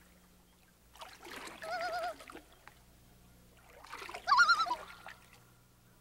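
Common loon giving its tremolo call twice, a fast wavering, quavering cry, with water splashing under it. The second call is louder.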